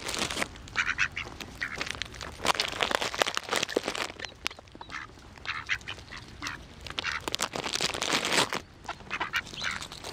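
Mallards quacking, a long series of short calls coming in quick runs with brief pauses between.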